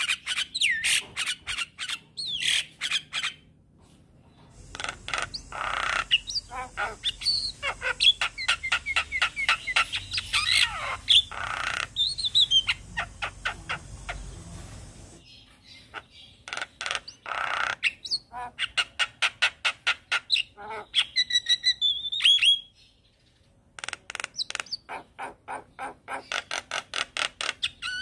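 Javan myna singing vigorously: rapid runs of harsh chattering notes, several a second, mixed with a few whistled glides. The song comes in bouts broken by two short pauses, about 4 seconds in and again about 23 seconds in.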